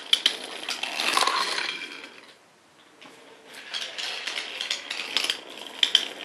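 Wooden toy train engines rolling along wooden track, their wheels clattering and clicking over the rails and joints. There is a short lull about halfway through before the clatter starts up again.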